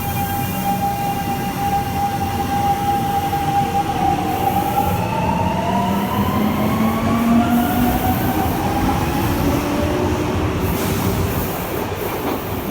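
Hitachi GTO VVVF inverter and traction motors of a Fukuoka City Subway 2000-series car, heard from inside the car as the train accelerates: one steady tone for about four seconds, then several tones glide upward together. This car's inverter changes modulation slightly out of step with the other motor cars, giving a dissonant sound, over the rumble of the wheels.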